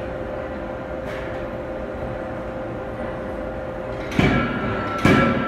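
Anyang C92K-25KJ CNC forging hammer striking twice, a little under a second apart near the end, as its ram comes down on a kitchen-knife blank in the die. A steady machine hum with a faint tone runs underneath.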